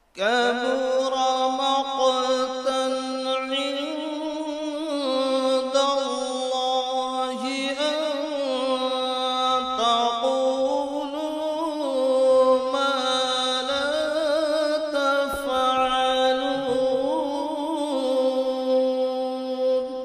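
A man reciting the Quran in melodic tajweed style: one long, ornamented, wavering phrase sung out on a single breath for about twenty seconds, starting straight after a silent pause.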